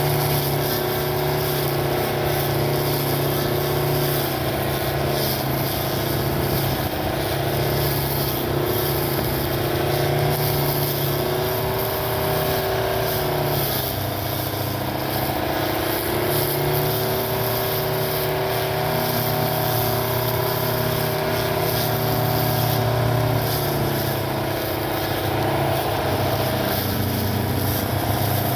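Homemade battery-powered lawn mower's electric motor and blade running steadily with a humming whine, its pitch sagging briefly twice.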